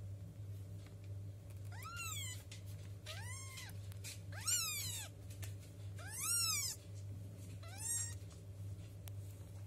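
Two-week-old kittens mewing: five thin, high mews, each rising and then falling in pitch.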